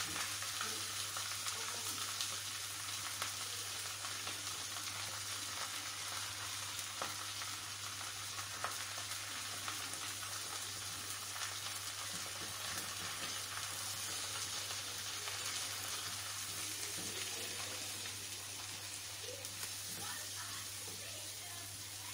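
Chopped onion and garlic frying in oil with browned chicken pieces in a pan: a steady sizzling hiss, with a spatula now and then scraping and tapping the pan as the mixture is stirred while the onion softens.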